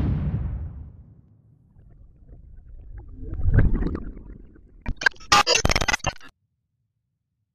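Sound-design effects under an animated logo and title card. A low rumbling swell fades over the first second and a half, and a second rumbling swell rises and falls around three and a half seconds in. From about five seconds a burst of rapid glitchy crackles and clicks stutters, then cuts off suddenly.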